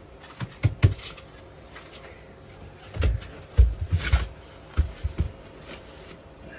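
A string of irregular dull thumps and knocks with some rustling, as bodies drop and shift on a roll-up slatted mat laid on the floor; the heaviest thumps come about three to four seconds in.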